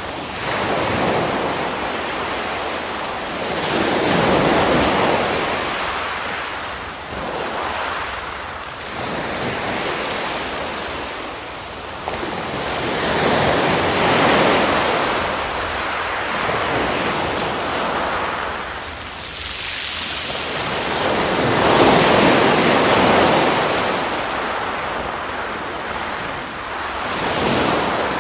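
Ocean surf: waves breaking and washing in, the noise of water swelling and falling away in surges every few seconds.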